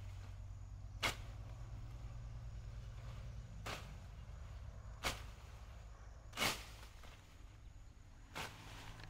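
Hand hoe chopping into soil: five short, sharp strikes at uneven intervals, the loudest about six and a half seconds in.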